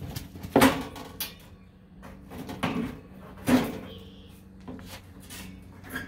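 Metal parts and tools being handled during work on an air-conditioner condenser fan motor: three loud clunks with a short ring, about half a second, two and a half and three and a half seconds in, plus a few lighter knocks, over a steady low hum.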